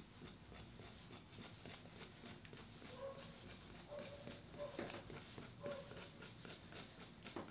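Faint, repeated scratching of a kidney tool scoring the surface of a leather-hard grogged porcelain clay base, roughening it so it can be joined with slip.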